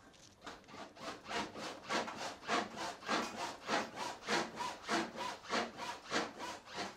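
Classic Porsche 911 rear suspension creaking and rubbing as the body is pushed down and bounced by hand, with no shock absorbers fitted. The creak comes in an even rhythm of about three strokes a second.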